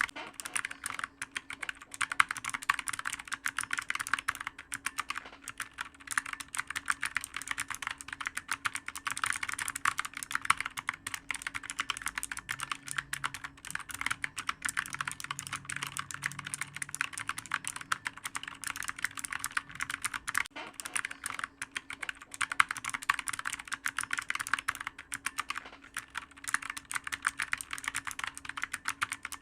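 Clicky computer keyboard being typed on fast and without a break, a dense stream of many keystrokes a second. A faint steady hum sits underneath.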